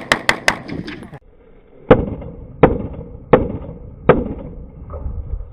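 Gunfire: a quick string of about five shots in the first second, then four heavier, evenly spaced single shots about 0.7 s apart, each ringing briefly after the crack.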